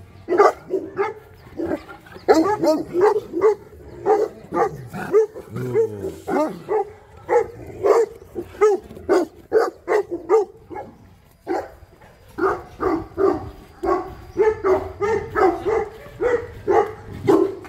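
Boerboel dogs barking, short barks repeated quickly at about two to three a second, with a brief lull about two-thirds of the way through.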